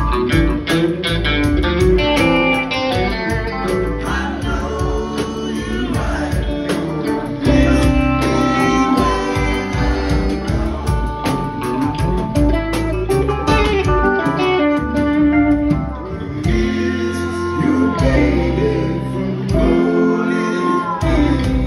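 Live rock band playing, led by two electric guitars over bass and drums, with singing at times. Bent, gliding guitar notes stand out in the last few seconds.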